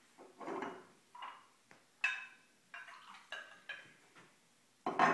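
Glassware being handled on a countertop: a glass jar of pickle juice and a drinking glass knock and clink against each other and the counter in a string of separate clinks, some with a short ringing tone, while the juice is poured. The loudest knock comes near the end.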